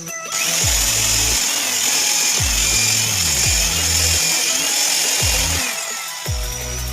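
An electric power tool running on wood, a loud even noise that starts just after the beginning and dies away about a second before the end. Bass-heavy electronic music plays underneath.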